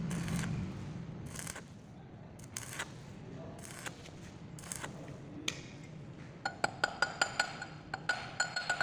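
Stick-welding arc crackling in short spurts as weld is built up on a broken bolt stub in an engine block. About two-thirds through it gives way to rapid sharp metal taps, about four a second, each ringing briefly, as a metal tool strikes the hot weld.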